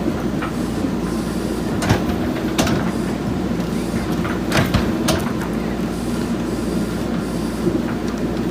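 JCB backhoe loader's diesel engine running steadily under work, with a few sharp knocks from the digging about two and five seconds in.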